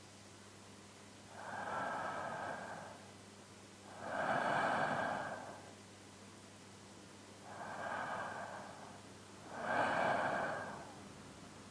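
A man's slow, deep sleeping breaths, heard close up on a binaural microphone. There are four breaths, alternating softer and louder, two to three seconds apart.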